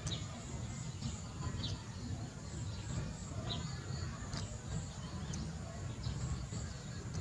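Outdoor ambience: a small bird gives short, falling chirps every couple of seconds over a steady low rumble and a faint, even high buzz.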